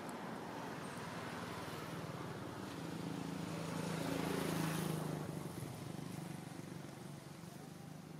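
A motor vehicle's engine passing by: a steady hum that grows louder to a peak about halfway through, then fades away.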